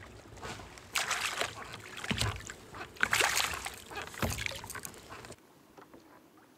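Water splashing and lapping against a kayak in surges about once a second, then dropping off suddenly near the end.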